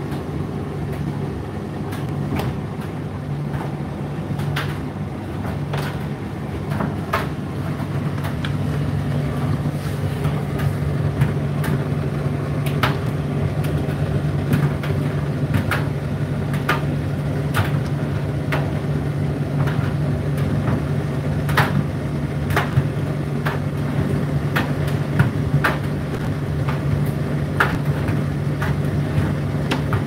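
Indesit IDC8T3 condenser tumble dryer running, a steady motor hum with irregular clicks and knocks over it. The hum cuts off at the very end as the motor switches off.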